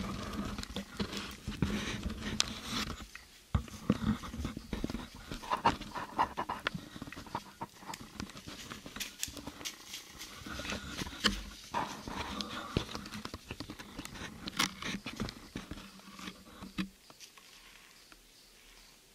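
Close rustling and knocking with many irregular clicks, from a hand-held camera and the hunter's clothing being moved in a tree stand. It dies away a couple of seconds before the end.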